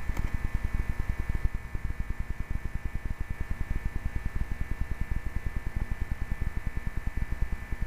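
A machine running with a steady, rapid, even pulsing, about eight beats a second, and a faint steady high whine.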